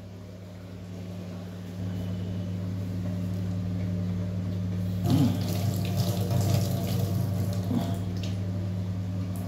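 Steady rush of running water, like a kitchen tap, that grows louder about five seconds in, over a low steady hum.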